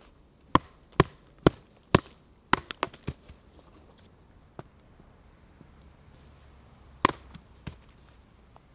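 A machete blade chopping down into the end of an upright stick to split it into kindling. There are four sharp strikes about half a second apart, then a quick run of lighter knocks, and one more hard strike near the end.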